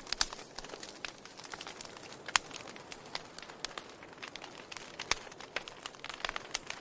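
Burning wood crackling, with irregular sharp pops over a soft steady hiss; a few louder snaps stand out, about two seconds in and again about five seconds in.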